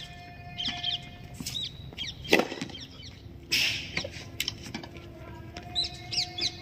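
A few sharp knocks of a tennis ball struck by rackets, with small birds chirping.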